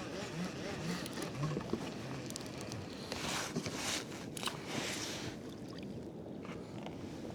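Water sloshing and splashing against a fishing kayak, with two hissing swells of splash about three to five seconds in and small clicks and knocks of handling on the boat.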